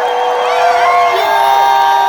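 A large crowd cheering, many voices holding long whoops that overlap and fall off at the end.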